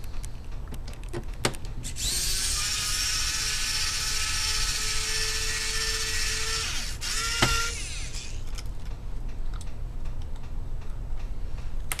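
Electric screwdriver whirring steadily for about six seconds as it backs out one of the screws holding an HP 15 laptop's keyboard deck. Scattered light clicks of the bit and screw come before and after.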